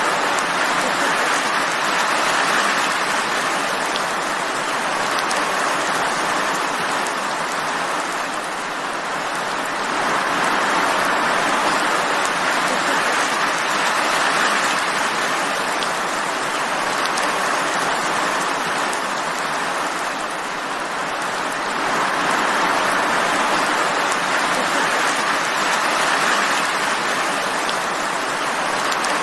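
Steady rain falling, an even hiss that swells and eases gently every ten seconds or so.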